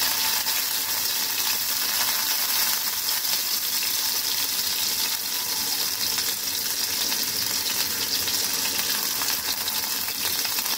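Mustard oil sizzling steadily in a frying pan with chopped tomato, crackling as freshly grated ginger falls into it.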